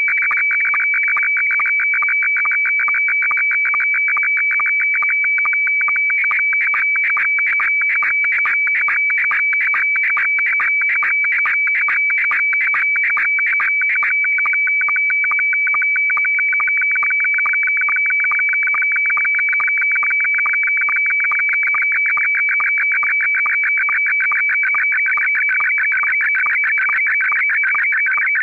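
Slow-scan television (SSTV) image being sent in Scottie S1 mode: a continuous high warbling of tones with one high whistle held strongest, broken by a short regular beat a little more than twice a second, one per image line.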